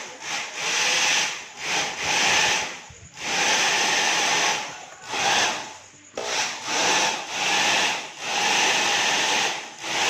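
Hand-held hair dryer's fan motor and airflow running in about eight bursts, cutting out and coming back every one to two seconds, as it is test-run after a broken internal wire was resoldered.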